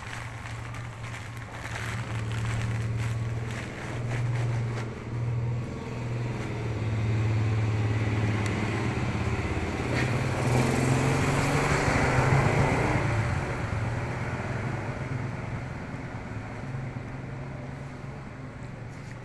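A motor vehicle engine running steadily with a low hum, growing louder about ten seconds in and fading away over the last several seconds.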